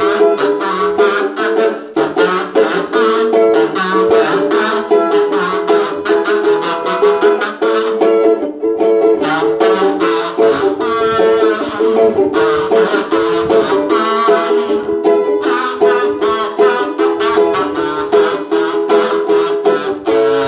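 A song played on a homemade kazoo made from a bottle neck with a plastic-bag membrane, its buzzing melody imitating a duck's voice over a steadily strummed ukulele-like accompaniment.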